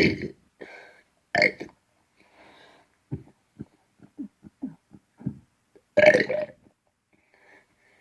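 A person burping repeatedly. There are short loud burps right at the start and about a second and a half in, then a run of short, quieter low pulses through the middle, and a longer, loud burp about six seconds in.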